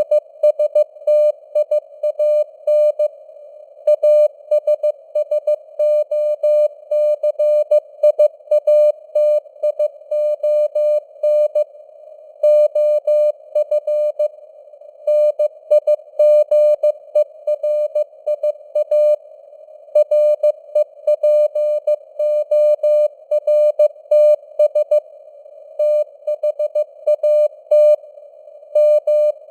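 Morse code (CW) sent at 15 words per minute: a single steady tone keyed on and off in dots and dashes, with short pauses between words. It sits in narrow-band hiss of simulated radio noise, and the signal strength fades up and down (QSB).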